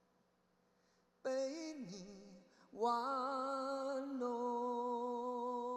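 A male vocalist sings unaccompanied: after about a second of silence, a wordless ad-lib that slides down in pitch, then one long held note.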